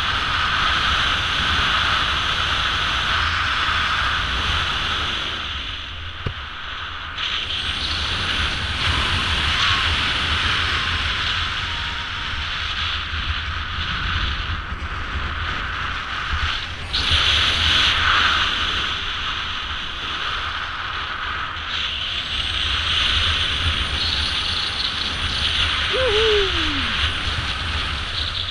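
Wind rushing over a GoPro's microphone during a parachute descent: a steady noise with a low rumble that swells and eases in several gusts.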